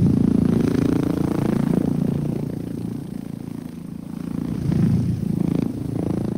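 Helicopter in aerobatic flight: a low, rapid rotor chop over the engine drone, its pitch bending as it swells and fades in loudness, dipping midway and peaking again about two-thirds through.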